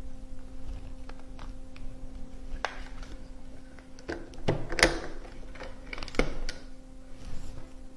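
Clicks and knocks of a magnetic LED grille light fixture being handled and snapped onto its magnetic track, the loudest snap just past the middle, over a faint steady hum.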